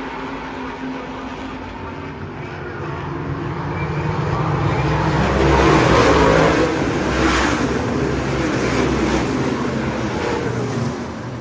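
A pack of ISMA supermodified race cars with big-block V8 engines accelerating hard past the grandstand on a start. The engine noise builds to its loudest about six seconds in, holds as the field goes into the turn, and drops off near the end.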